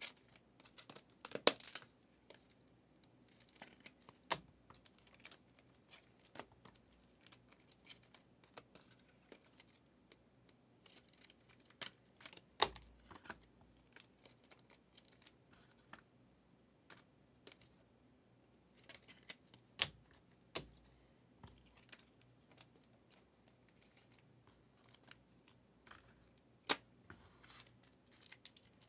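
Faint, scattered clicks, taps and rustles of trading cards and foil pack wrappers being handled, with a few sharper snaps spread through.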